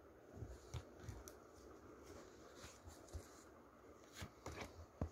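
Near silence with faint handling noise: soft rustles and a few small clicks, the sharpest just before the end.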